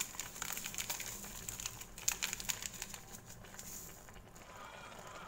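A plastic sachet of powdered seasoning crinkling and ticking as it is shaken out over a simmering wok: a quick, irregular run of clicks for about three and a half seconds, then only a faint steady hiss.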